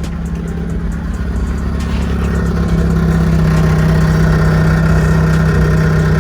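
BMW 428i's 2.0-litre N20 turbo four-cylinder running steadily at idle through a catless downpipe, growing a little louder over the first few seconds. A rattle comes from under the car because the downpipe's tip is not seated properly into the exhaust.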